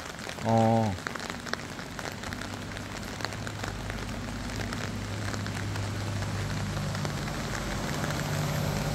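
Rain pattering, with many small drop clicks. About half a second in there is one short, loud, low-pitched vocal sound. From about three and a half seconds a steady low hum sets in and grows slowly louder.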